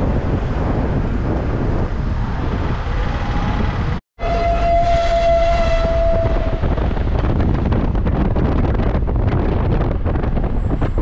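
Steady rumble of a moving road vehicle. The sound drops out for a moment about four seconds in, then a vehicle horn sounds one held note for about two seconds.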